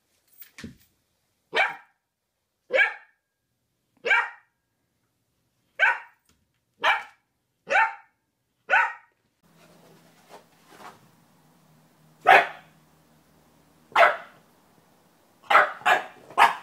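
Puppy barking in short single barks, about one a second, seven in a row. Then a second puppy barks louder over a faint low hum, ending in a quick run of three barks.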